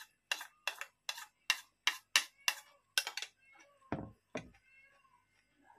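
A metal spoon scraping against a bowl in quick repeated strokes, about nine of them at a little over two a second. About four seconds in come two heavier knocks as the bowl is set down on a plastic table.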